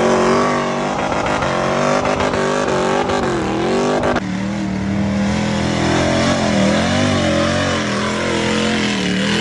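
Off-road trucks' engines revving hard and unevenly under load as they climb a steep dirt slope, the pitch rising and falling with the throttle. About four seconds in the sound switches abruptly to another truck's engine.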